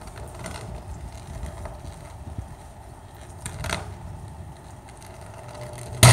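Electrical arcing at a faulty utility pole: faint intermittent crackles over street background noise, then near the end a sudden loud buzzing arc flash breaks out.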